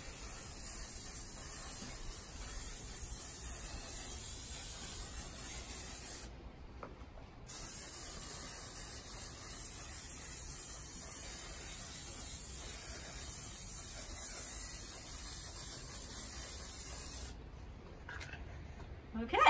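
Aerosol can of spray adhesive hissing steadily as it lays a light coat on the backs of paper sheets, with a break of about a second partway through. The spraying stops a couple of seconds before the end.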